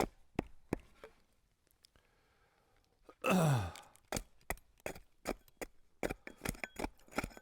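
Sharp, light knocks of hand tools working cedar while shakes are split by hand, coming about three a second in the second half. A short sigh, falling in pitch, a little over three seconds in.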